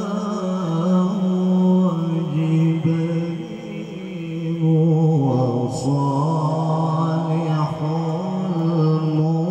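A male qari reciting the Qur'an melodically into a microphone, in long held notes with ornamented turns of pitch. A brief break comes about six seconds in.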